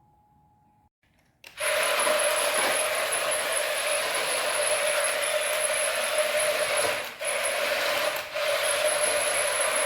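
Small electric motor starting about one and a half seconds in and running steadily with a high whine, cutting out briefly twice near the end.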